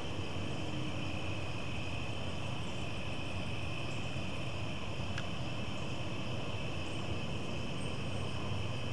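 A steady chorus of crickets trilling without a break, over a constant low background hum.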